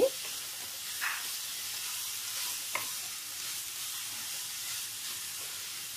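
Grated carrots sizzling in hot ghee in a non-stick kadhai as a spatula stirs them, a steady hiss with a couple of soft scrapes of the spatula against the pan about one and three seconds in.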